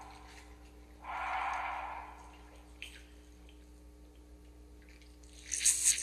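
Heavy breathing: a long breath about a second in and a sharper, hissing one near the end, over a low steady hum.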